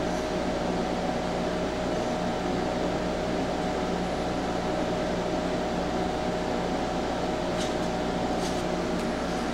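Steady mechanical hum and hiss, like a fan or air conditioner running, with a constant low tone. Two faint short sounds come near the end.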